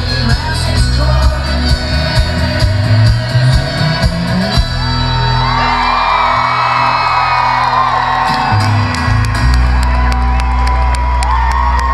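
Folk-rock band playing live through a concert PA: banjo, acoustic guitar, keyboard, double bass, brass and a steady drum beat, over a heavy bass, recorded from the audience. Crowd whooping and cheering over the music.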